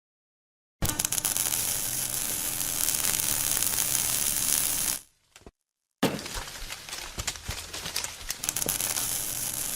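A Monarch geared-head lathe running, with a steady hum under dense crackling and clinking. It comes in two stretches with a short break about five seconds in.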